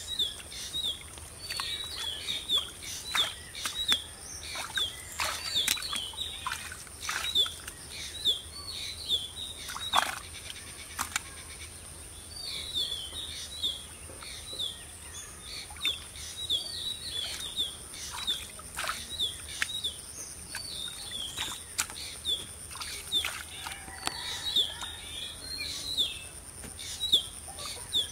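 Small birds chirping in rapid runs of short high notes, pausing now and then, over the wet squelches and splashes of hands groping in a muddy, water-filled hole. A thin steady high tone runs underneath.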